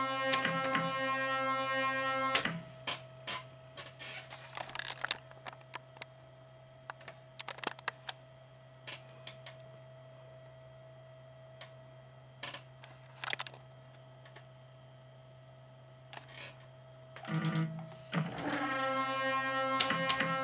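Pachislot slot machine (original 4th-generation Hokuto no Ken) in play. An electronic buzzing tone sounds while the reels spin and cuts off after about two seconds. A run of sharp clicks and clunks follows as the stop buttons are pressed and the reels stop, with a few more clicks later, over a steady low electrical hum. The tone starts again about three seconds before the end as the reels are set spinning once more.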